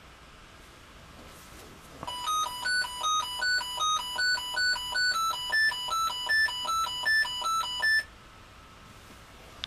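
An Arduino Mega playing an RTTTL ringtone melody as electronic square-wave beeps: a quick run of short notes bouncing between a low note and higher ones. It starts about two seconds in and cuts off abruptly about six seconds later.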